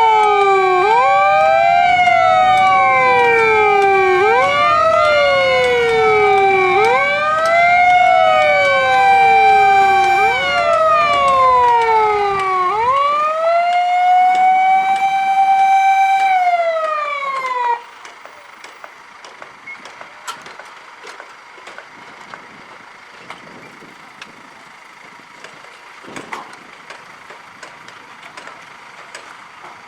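Two Japanese fire engine sirens wail out of step with each other, each rising, holding its pitch, then falling, over the low rumble of the engines. The rumble and one siren stop a little under halfway through. The other siren cuts off suddenly in mid-fall a few seconds later, leaving quiet background with scattered clicks.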